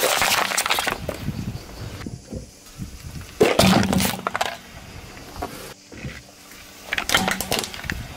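A car tyre rolling over and crushing objects three times. First an empty plastic drink bottle crackles as it is flattened. Around the middle a metal drink can crunches, the loudest of the three, and another crunch comes near the end.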